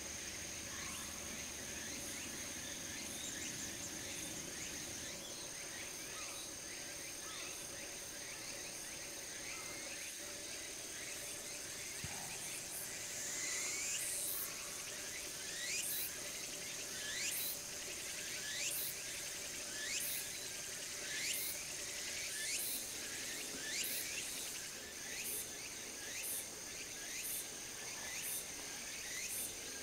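Insects trilling steadily at two high pitches. From about halfway in, a high call that falls sharply in pitch joins them, repeated about every second and a half.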